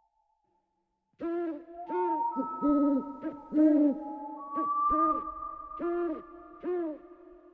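Owl-like hooting: about nine short hoots in quick succession, starting about a second in, over a faint sustained tone that glides slowly upward.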